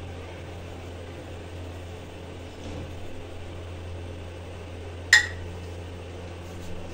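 Steady low hum of kitchen room tone, with one sharp, short clink about five seconds in that rings briefly.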